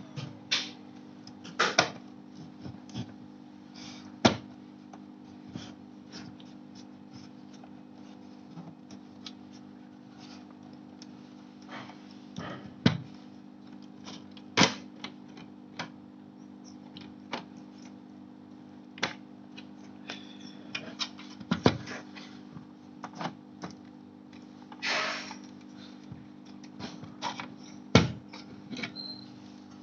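Irregular clicks and light knocks, a few of them sharper, over a steady low hum.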